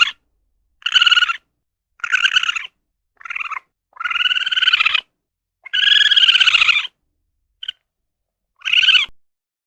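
A series of about seven high-pitched, buzzy animal calls, each half a second to a second long, with silent gaps between them. The two longest calls come near the middle, and one very short call comes near the end.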